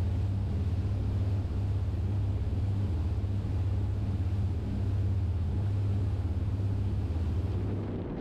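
Riva 82 Diva motor yacht running at cruising speed: a steady low engine hum with an even rushing noise over it.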